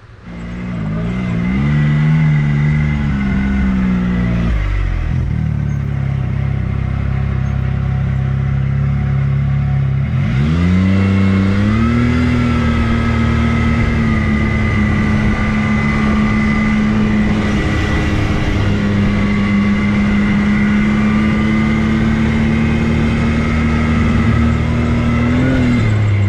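Off-road vehicle engine accelerating and running along a trail, easing off about four seconds in, then speeding up again about ten seconds in and holding a steady cruise, with a steady high whine above the engine note.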